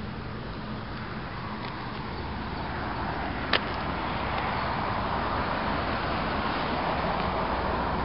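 Steady rushing outdoor noise, growing louder from about halfway through, with one sharp click about three and a half seconds in.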